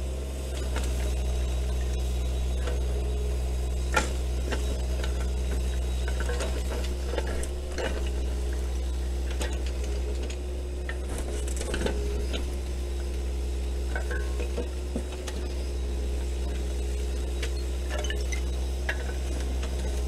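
An engine running steadily at idle, with scattered light knocks and clatter over it, the sharpest knock about four seconds in, typical of firewood being shifted on a pile.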